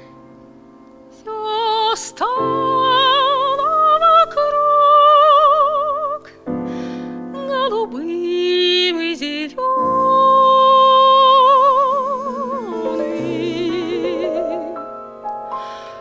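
A woman sings a slow jazz ballad with wide vibrato on long held notes, to grand piano accompaniment. The piano plays softly alone for about the first second before the voice comes in.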